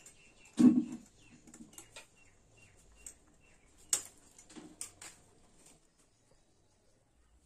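Crab shell being cracked and cut by hand against a boti blade: a few sharp cracks and snaps, the loudest with a dull knock about a second in, more near the middle.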